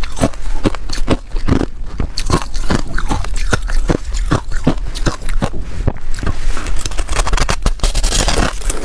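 A person chewing crushed ice, with rapid crisp crunches about three or four a second. Near the end comes a harder, denser crunch as a frozen clump of crushed ice is bitten.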